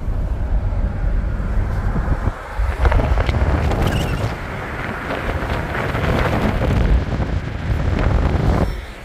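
1975 Pontiac Grand LeMans on the move: wind rushing over the microphone, with road and engine noise underneath. The noise dips briefly about two seconds in and again near the end.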